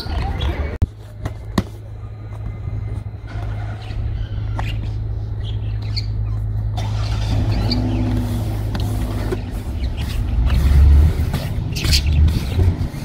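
A motor vehicle's engine running steadily in the street with a low hum that grows louder about ten seconds in, with a few light knocks early on.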